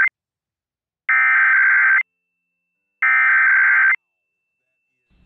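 Emergency Alert System SAME header data tones: harsh, buzzy digital warbling bursts. The end of one burst comes at the start, then two more full bursts follow, each about a second long with about a second of silence between. The header repeated three times marks the start of an EAS alert or test.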